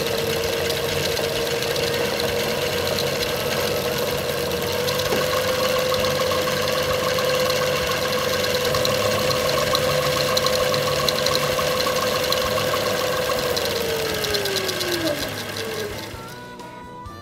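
HD140 Linewinder's motor and gearbox running with a steady whine, winding braided line onto a spinning reel spool. Near the end its pitch falls as the machine slows to a stop.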